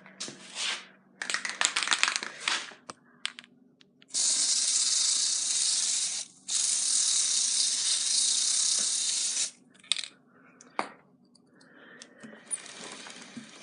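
Aerosol chain lube sprayed onto a motorcycle drive chain in two long hissing bursts, of about two and three seconds, with a short break between. Light clicks and rattles come before the spraying.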